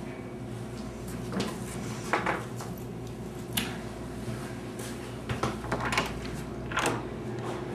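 Scattered short clatters, knocks and rustles of someone moving about and handling objects, about seven in all, over a steady low hum.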